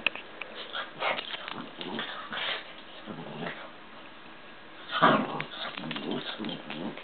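A small Lhasa Apso makes short vocal noises in irregular bursts while it squirms and rolls on its back on a blanket. The loudest burst comes about five seconds in.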